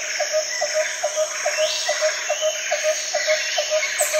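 Background music with a steady ticking pulse, about four ticks a second.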